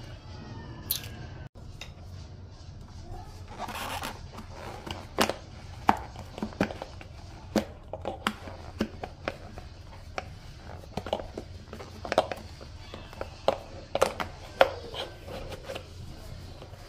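Thin plastic bottle with crumpled paper inside being squeezed and handled: irregular crinkling and crackling clicks, busiest through the middle, over a steady low hum.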